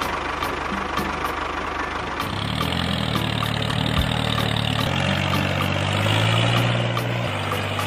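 Tractor engine running steadily, with low tones that shift in pitch a few times.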